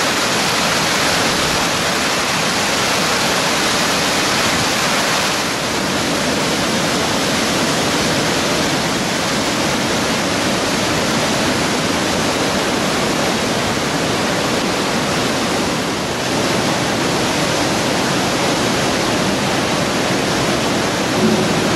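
Waterfall cascading over rock: a loud, steady rush of falling water.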